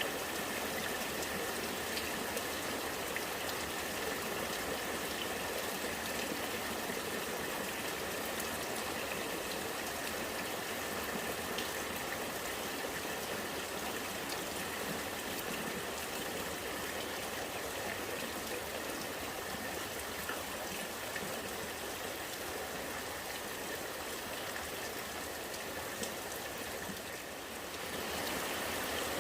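Rainwater running and gurgling as rain keeps falling, a steady wash of flowing water with scattered drips. It dips briefly near the end.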